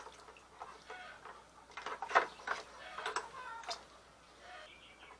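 Short clucking calls of hens, with sharp clinks of metal utensils against a plastic bucket; the loudest clink comes a little past two seconds in, with a few more about a second later.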